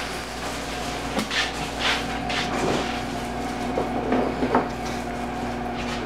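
Plastic bread bag rustling, with light clicks and clatter as slices are handled, over a steady low hum.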